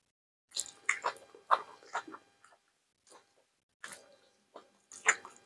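Close-up sounds of a person biting, tearing and chewing salted tripe. They come in two clusters of sharp, crackly bites and chews, with a short pause between them.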